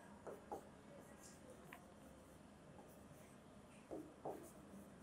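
Faint strokes of a marker writing on a whiteboard: a few soft, short scratches over near silence.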